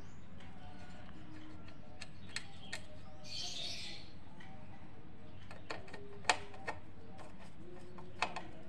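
Screwdriver working the screws that hold a mixer's circuit board to its metal top casing: scattered sharp clicks, the loudest about six seconds in, and a short scrape between three and four seconds in, over steady low background noise.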